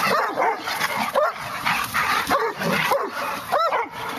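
Greater Swiss Mountain Dogs barking and yipping in rough play: a string of short calls that rise and fall, with one louder call near the end.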